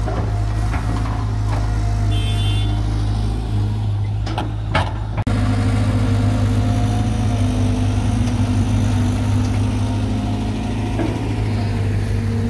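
Caterpillar 320 GC excavator's diesel engine running steadily under a continuous low hum. There are a few knocks about four to five seconds in, and a brief sudden dip about five seconds in, after which the engine note shifts slightly.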